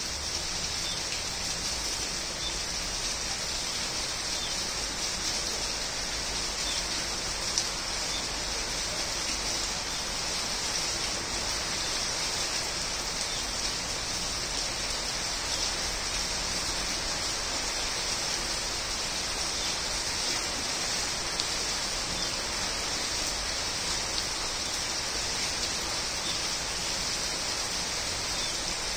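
Steady rain falling on garden foliage: an even hiss of rain on leaves, with a few louder single drops standing out.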